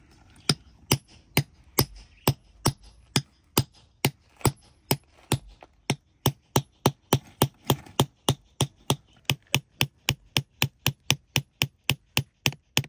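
Hand hammer striking a steel chisel held against rock, a steady series of sharp taps, about two a second at first and quickening to three or four a second in the second half. The chisel is cutting away rock to free a pocket of cavansite crystals.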